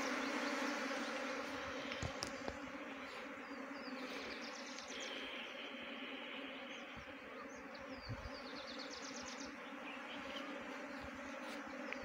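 Honey bee swarm buzzing: a steady, dense hum of many bees in flight around the hive as the colony swarms, easing slightly in loudness.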